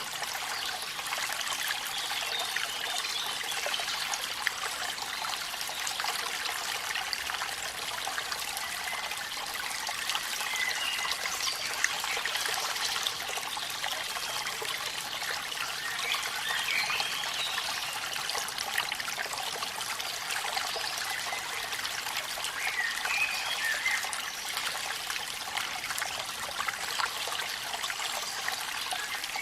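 Steady trickling and splashing of falling water, with rain and a waterfall's flow blended into one even rush.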